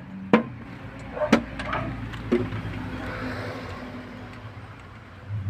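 Three sharp knocks, about a second apart, over a steady low hum.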